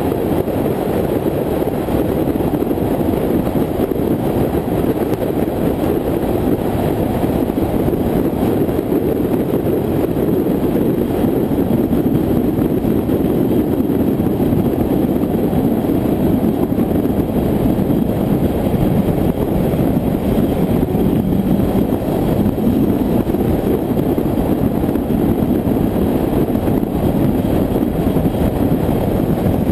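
Steady driving noise of a car cruising along a highway: engine, tyre and wind noise blended into one even, unchanging rush, picked up by a camera mounted outside on the car's hood.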